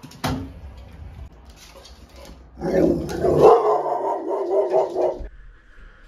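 A dog vocalizing for about two and a half seconds, starting near the middle, after a short click near the start.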